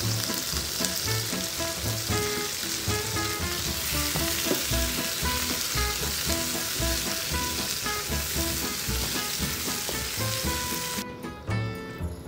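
Cherry tomatoes, garlic and parsley sizzling in hot oil in a frying pan while being stirred with a silicone spoon. The sizzle cuts off abruptly near the end. Background music with a steady beat plays underneath.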